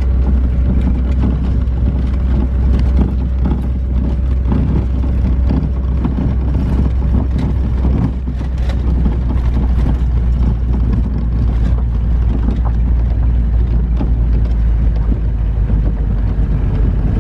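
A vehicle driving at steady speed, with a continuous low engine and road rumble, wind noise and many small scattered knocks and rattles.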